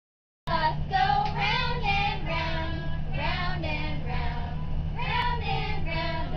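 Several voices singing a song together, high and lively, over a steady low hum.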